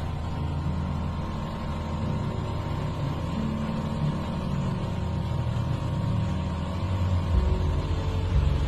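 Ultralight aircraft's engine and propeller droning steadily, heard from inside the cabin while the plane is still flying normally. The low rumble gets heavier and slightly louder about seven seconds in.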